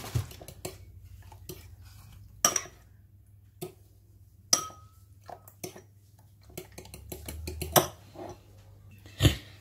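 Metal fork clinking against a ceramic bowl as beaten eggs are stirred and lifted: scattered clinks with quiet gaps between, a few sharp ones with a brief ring.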